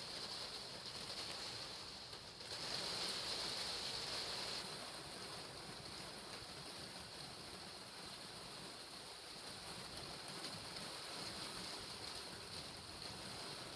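Steady rain falling, a soft even hiss heard through a window, a little louder for a couple of seconds near the start.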